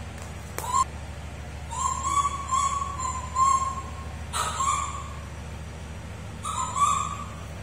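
Baby macaque giving repeated high, level coo calls: a brief one, then about four in a quick run, then two more spaced apart.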